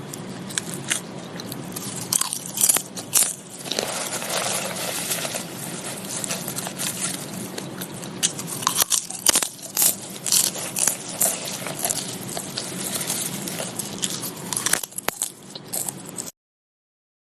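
Close-up crunching and chewing of crisp, crunchy food: a dense run of sharp, crackly bites and chews that cuts off suddenly near the end.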